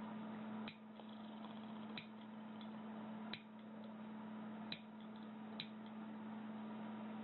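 Nail clippers snipping: five sharp, separate clicks about a second or so apart, over a steady low hum.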